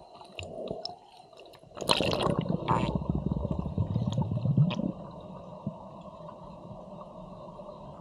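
Water splashing and bubbling heard underwater as a finned freediver duck-dives from the surface, loud for about three seconds, then settling into a steady underwater background noise.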